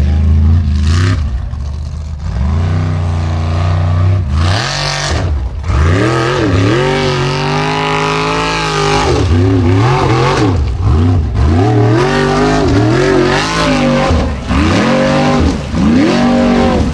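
Formula Offroad unlimited-class buggy's engine revving hard under load, its pitch repeatedly rising and dropping about once a second as the spinning paddle tyres claw up a steep dirt hill. There are short bursts of hiss about one second and five seconds in.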